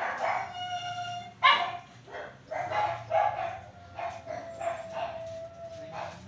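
Small dogs barking and yipping in play, a series of short sharp barks with two drawn-out high whines, the longer one near the end.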